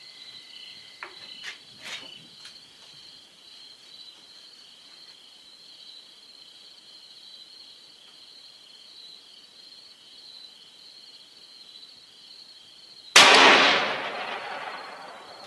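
.416 Ruger bolt-action rifle (Ruger M77 Hawkeye Guide Gun) with no muzzle brake firing one shot about thirteen seconds in, the report ringing out and fading over a couple of seconds. Before it, insects chirr steadily with a few light clicks.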